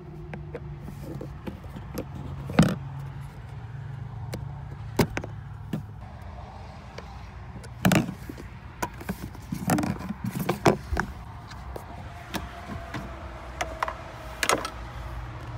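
Irregular clicks and knocks of a screwdriver and other hand tools on the plastic trunk panels and their fasteners, the sharpest about three and eight seconds in, over a low steady hum.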